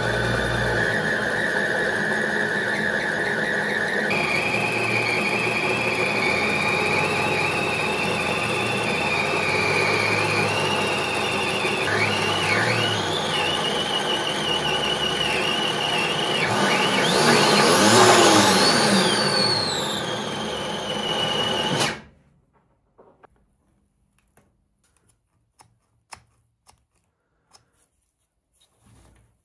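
Motor-driven test rig for a 3D-printed ABS clutch running under load, with a loud, high squeal from the belt and clutch drive. The squeal steps up in pitch about four seconds in, then wavers and slides up and down, loudest near the end. Everything stops abruptly about 22 seconds in, followed by a few faint clicks.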